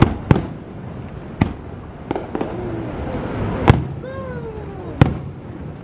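Fireworks going off: about seven sharp bangs at uneven intervals, two of the loudest landing about three and a half and five seconds in.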